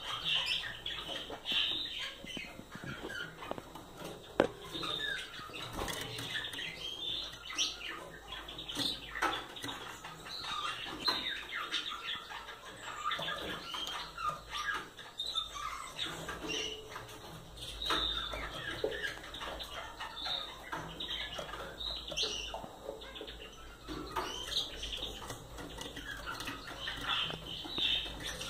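Small caged finches calling in short, repeated chirps, with scattered clicks and light knocks from the cage and a sharp knock about four seconds in.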